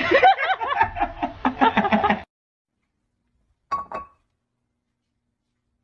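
People laughing loudly in quick bursts, which stop abruptly about two seconds in. Then two quick knocks with a short ring, close together, a little after the middle.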